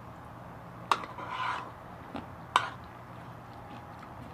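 A metal spoon clinking sharply against a bowl twice, with a short scrape of the spoon across the bowl between the clinks.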